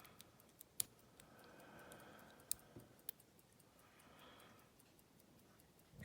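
Faint, sparse clicks of a lock pick probing and lightly bouncing the pins of a Scandinavian oval (ASA) cylinder lock under tension, with the two sharpest clicks about a second in and about two and a half seconds in.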